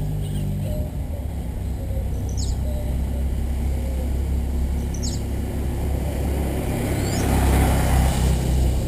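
A bird gives three short, sweeping chirps a few seconds apart over a steady low rumble. Near the end a louder swell of noise comes up and dies away, like a vehicle passing.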